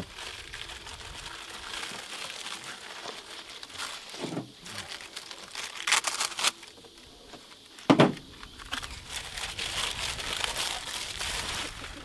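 Cardboard box and foam packing of a window air conditioner being opened and handled: continuous rustling and crinkling, with two louder sharp knocks or scrapes about six and eight seconds in.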